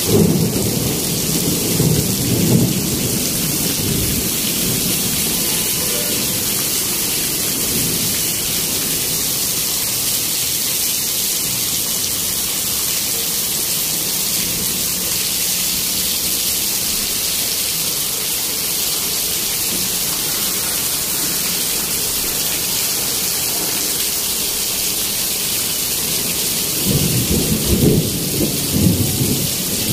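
Heavy rain pouring steadily onto a flooded paved yard. Low rumbles swell near the start and again near the end.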